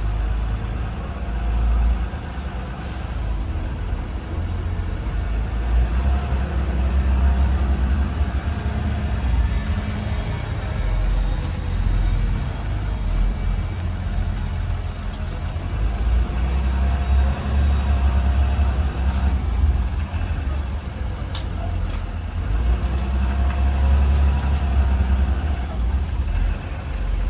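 2020 Blue Bird Vision school bus under way, heard inside the bus: a steady low engine and road rumble that swells and eases as the bus drives.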